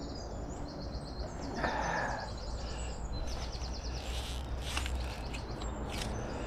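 Songbirds singing rapid high trills over a low steady outdoor rumble.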